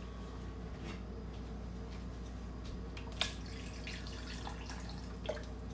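Water poured from a pitcher into a blender jar of greens, a faint trickle, with a couple of light clicks.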